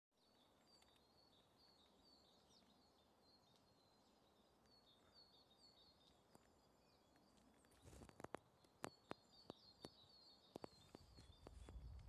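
Faint, rapidly repeated high chirps of small songbirds. From about two-thirds of the way in, a run of irregular crisp crunches, footsteps in snow, comes in over them.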